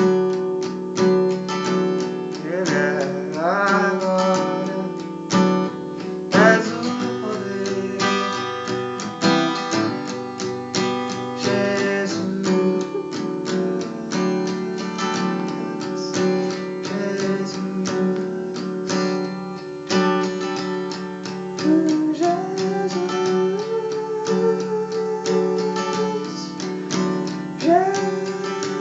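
Instrumental passage of a gospel worship song, led by acoustic guitar with picked and strummed chords. Over it, a sustained melody line slides up into its notes.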